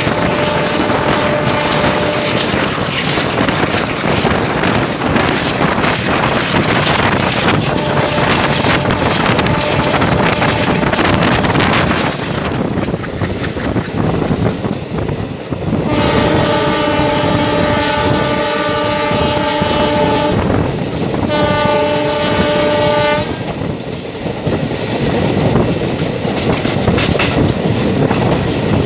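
Passenger train running at speed, with rushing air and the clickety-clack of the coach wheels on the rails. The WDM3A diesel locomotive's horn sounds faintly a couple of times, then loudly twice past the middle: a long blast of about four seconds and a shorter one of about two seconds.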